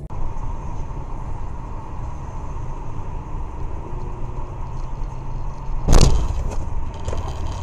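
Steady road and engine rumble inside a moving car, picked up by a dashcam, with a faint steady whine. A single sharp, loud thump about six seconds in.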